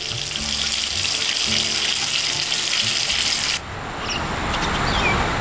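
Water running from a tap, with soft music underneath. The water cuts off suddenly about three and a half seconds in as the tap is turned off, leaving a softer, lower steady noise.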